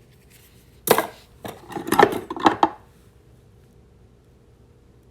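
Metal tools knocking and clattering against each other as they are handled and set down: a run of sharp clanks about a second in, lasting about two seconds.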